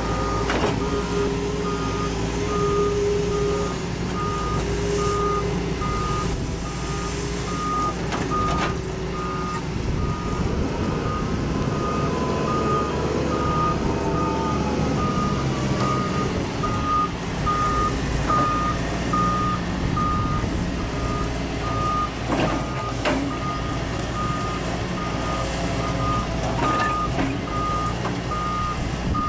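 A working machine's backup alarm beeping steadily at an even pace over its running engine.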